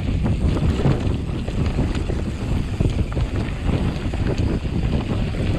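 Wind buffeting the microphone on a moving mountain bike, over a steady rumble of tyres on rough ground with many small rattles and knocks.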